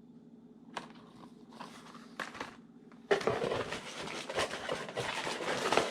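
Plastic lure packaging crinkling and rustling as it is handled, faint at first and much louder from about three seconds in.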